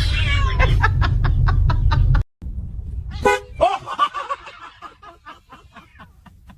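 Loud low rumble with rapid ticking, about six or seven a second, that cuts off abruptly. Then a car horn gives one short toot, followed by quiet chuckling.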